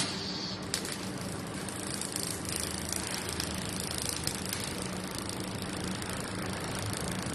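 Laser welding machine running, a steady mechanical hum and hiss with a few light clicks.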